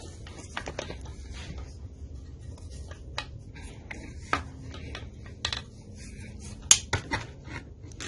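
Metal parts of a Briggs & Stratton engine clicking and knocking as the block is handled and the crankshaft is worked out past the connecting rod. It is a scattering of sharp taps, one a little after halfway with a short metallic ring, the loudest about two-thirds in.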